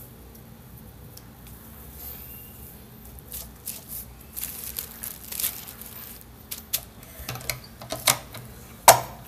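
Handling of a wooden tortilla press and its plastic sheet: scattered light clicks and plastic rustles, then one sharp wooden knock near the end.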